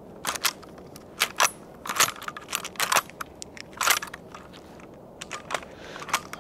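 Footsteps crunching through dry leaf litter and twigs, a run of irregular sharp crunches with a short pause just after the middle.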